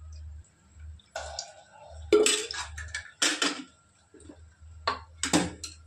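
Metal kitchen utensils and pots clinking and clattering against each other in a few sharp knocks, the loudest about two, three and five seconds in.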